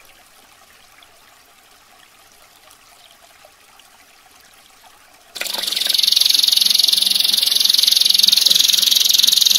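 Faint trickling water for about five seconds, then a domestic canary abruptly breaks into loud song: a long, rapid rolling trill.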